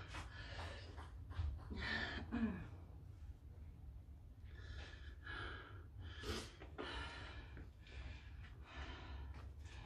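A person breathing hard from exertion: quick, heavy, gasping breaths one after another, with a brief voiced gasp about two seconds in.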